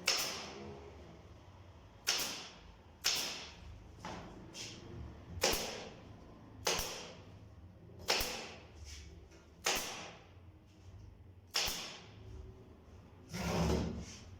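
Sharp knocks on wood, about eight strikes at uneven intervals, each with a short fading tail, and a longer swelling sound near the end.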